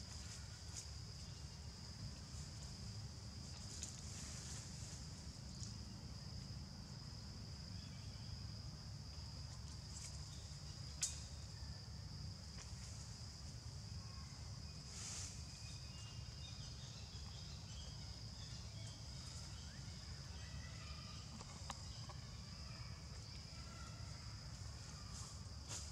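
Outdoor ambience of a steady, high-pitched insect drone over a low rumble, with a few faint clicks and one sharper click about eleven seconds in.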